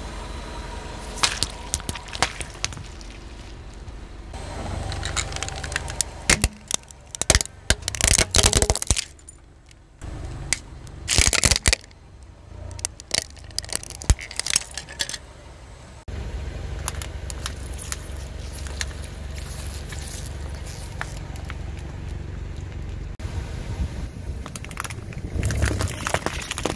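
A car tyre rolling over and crushing toys and other objects, with a string of sharp cracks and crunches as plastic breaks under it. Under the cracks is the car engine's low running rumble, which is steadier in the second half. Cracking and crunching pick up again near the end as drink cans are flattened.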